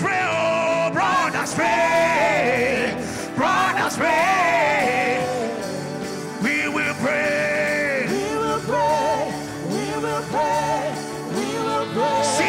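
Gospel worship music: a voice sings long, wavering phrases over sustained instrumental chords.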